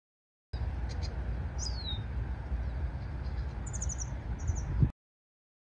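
A few bird calls over a steady low rumble: a single falling whistle, then two short bursts of quick high chirps near the end. The sound cuts in and off abruptly, with a low bump just before it stops.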